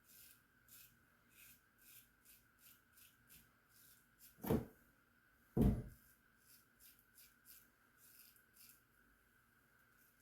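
1901 Gem Junior single-edge safety razor scraping through lathered stubble in short strokes, about two a second. Two louder thuds about halfway through.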